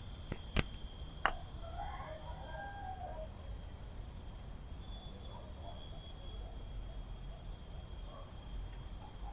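Insects chirring steadily in a high, continuous drone, with a few light knocks of wood pieces set down on a wooden stump in the first second or so. A rooster crows faintly in the distance about two seconds in.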